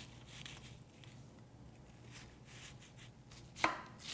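Chef's knife cutting an onion on a wooden cutting board: faint slicing strokes through the onion, then near the end two sharp knocks of the blade on the board, about half a second apart, as the dicing begins.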